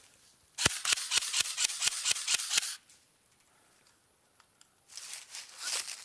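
Airsoft gun firing two bursts of rapid shots, a string of quick sharp clicks. The first lasts about two seconds from half a second in; the second starts near the end.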